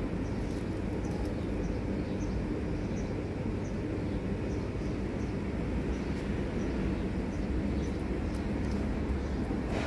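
Steady low rumble of street traffic noise, with a faint hum and scattered faint high ticks.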